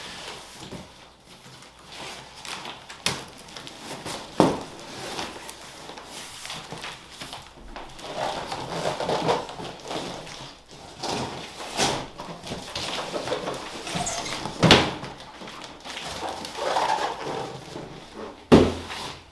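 Cardboard shipping boxes being handled and opened: rustling and scraping with several sharp knocks and thumps, the loudest near the end.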